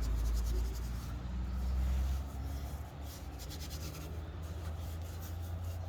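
Dirt and dust being rubbed and scraped off a truck's underbody near the rear bumper bolts, in quick repeated scratchy strokes, over a steady low rumble.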